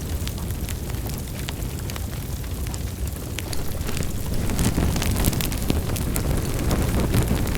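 Wood fire crackling in a fireplace: a steady low rumble of the flames with scattered sharp pops and snaps, which come thicker and louder about halfway through.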